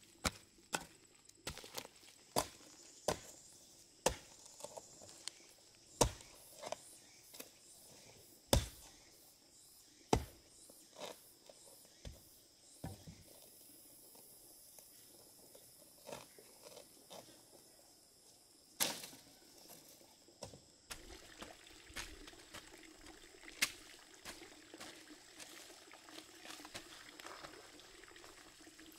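A series of sharp strikes, irregular and about one a second, thinning out about halfway through, with one strong strike a little after that.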